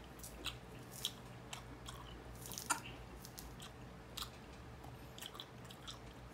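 Close-up chewing and wet mouth clicks of a person eating orange segments, with scattered short smacks, the loudest a little under three seconds in.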